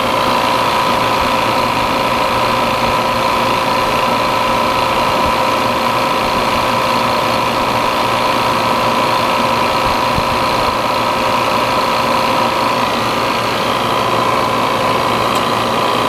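Refrigerant recovery machine running steadily, its compressor pulling refrigerant out of an air conditioner and pushing it into a recovery tank, with a constant hum and whine.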